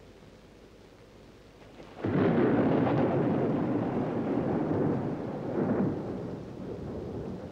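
A thunderclap breaks about two seconds in and rumbles on for several seconds, swelling once more before slowly fading.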